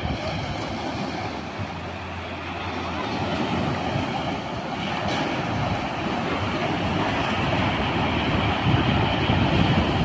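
Ocean surf breaking and washing up the beach: a steady rush that grows louder over the second half, with wind buffeting the microphone.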